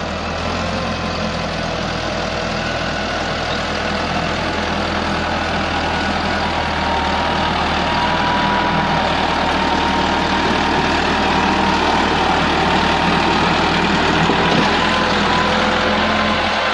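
Massey Ferguson 385 tractor's diesel engine running steadily under load as it pulls a loaded trolley up a dirt track, growing gradually louder as it comes closer.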